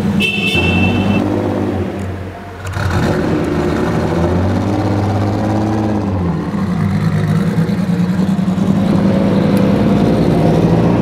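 Turbocharged 3.2-litre V6 of an Acura NSX running, its engine note rising and falling as the car pulls away.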